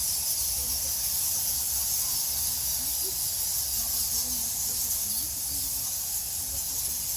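Steady high-pitched hiss-like din of a huge fruit bat colony squeaking and chattering, unbroken throughout.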